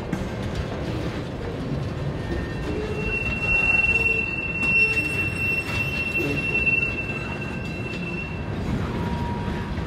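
Freight train tank cars rolling past with a steady rumble of wheels on rail. A high, steady wheel squeal starts about three seconds in and holds for about five seconds.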